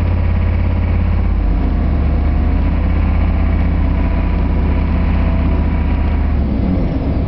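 GM K2500 pickup's 6.5-litre V8 diesel heard from inside the cab while driving: a loud, steady low drone. The engine note changes about a second in and again near the end.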